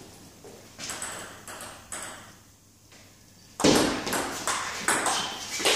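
Table tennis ball: a few light taps in the first two seconds, then from about three and a half seconds in a fast rally of sharp clicks as the ball strikes the bats and the table, three to four hits a second.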